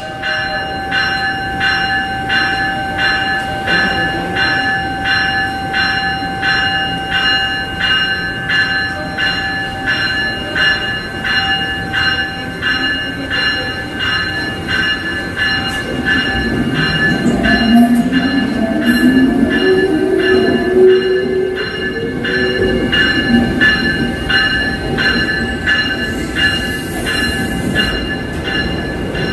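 Amtrak electric locomotive's electronic bell ringing steadily, about three strikes every two seconds, over the rumble of the train. Midway a whine rises in pitch for several seconds.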